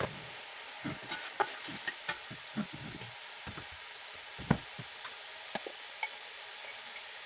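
Onion, ginger-garlic paste and ground spices sizzling steadily in hot oil in a metal pan while being stirred, with the stirring utensil scraping and knocking against the pan now and then; the loudest knock comes about four and a half seconds in.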